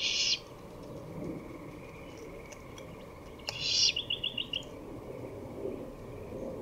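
Great horned owl nestling begging: two short, harsh, hissing screeches, one at the start and one about three and a half seconds in, the second followed by a quick run of about six clicks.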